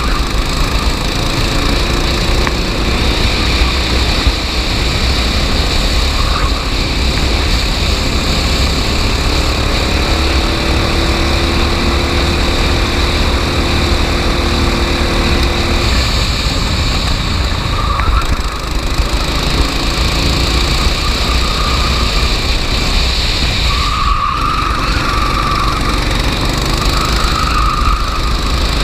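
Racing go-kart engines running at speed, the engine note rising and falling over a steady low rumble.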